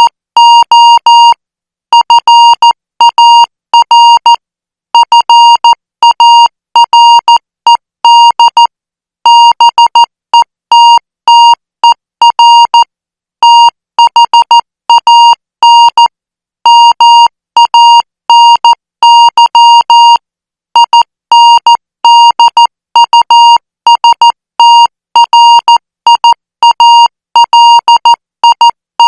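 International Morse code practice signal at 14 words per minute: a steady beep of about 1 kHz keyed on and off in short dots and longer dashes, grouped into characters with brief gaps between them.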